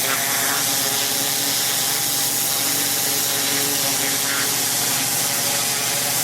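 Pressure washer spraying a driveway: a steady hiss of high-pressure water over the constant hum of the machine.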